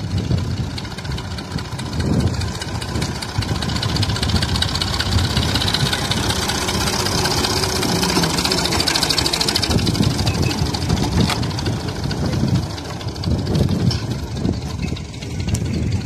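Farm tractor's diesel engine running steadily as the tractor, towing a tine cultivator, drives up and passes close by, loudest about halfway through.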